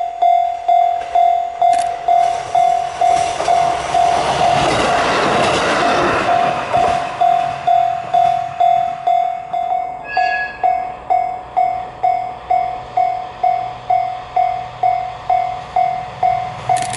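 Level crossing warning bell ringing with a steady pulsing tone, about two and a half strikes a second. A diesel train rushes past through the crossing a few seconds in, and a low engine hum rises near the end.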